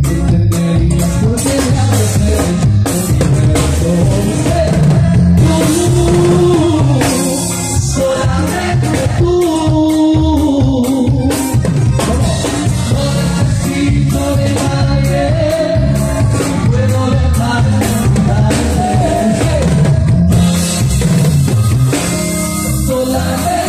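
Live band music: a dance number with a singer over a drum kit and heavy bass keeping a steady beat.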